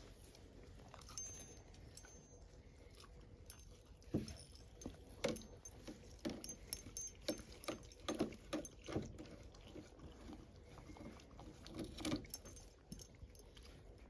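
A dog eating, with irregular crunching and clicking that starts about four seconds in and stops near the end.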